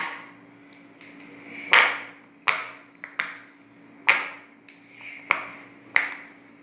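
Silicone pop-it fidget toy bubbles being pressed: a series of about nine sharp pops at irregular intervals, each with a short ring.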